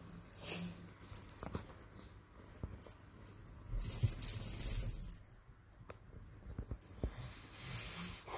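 A small long-haired dog scrambling about on a duvet: bedding rustling with light jingling in irregular bursts, loudest about four seconds in.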